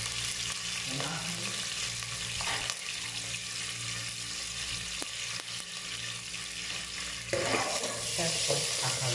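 Garlic and onion sizzling in hot cooking oil in a stainless steel pot. About seven seconds in it gets louder as a spatula stirs them.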